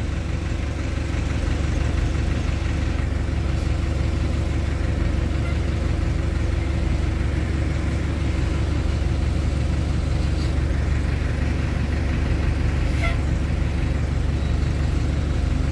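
Truck engine running steadily with a deep, even drone.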